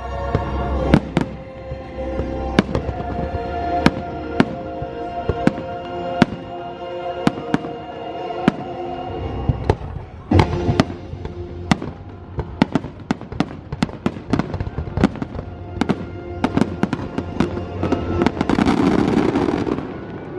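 Fireworks shells bursting in a rapid string of sharp bangs over the show's music, which holds long sustained chords. Near the end a dense rush of noise swells over everything.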